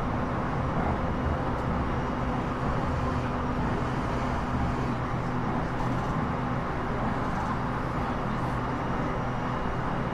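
Cabin noise inside a Sendai Airport Line electric commuter train under way: an even rumble of wheels on rail with a steady low hum.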